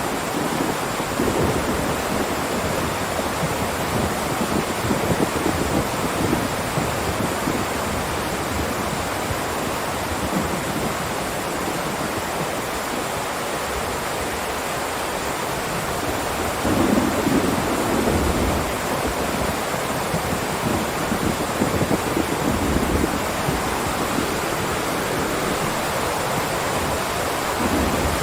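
Heavy rain downpour, a steady dense hiss, with low rumbles of thunder rising and fading over it, the strongest a little past halfway.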